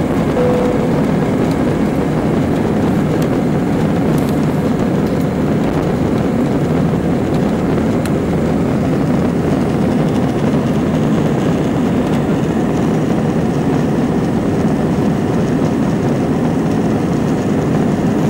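Steady low drone of an Airbus jet airliner's engines and the air rushing past, heard from inside the passenger cabin as it climbs just after takeoff.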